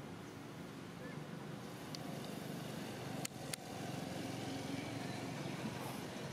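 Steady low outdoor rumble that grows a little louder about two seconds in, with two sharp clicks in quick succession near the middle.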